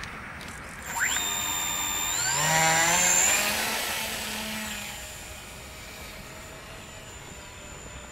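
Twin brushless electric motors and propellers of a twin-engine RC model plane spooling up about a second in on its take-off run: a high whine that climbs sharply in pitch in two steps, then fades away as the plane rolls off and climbs out.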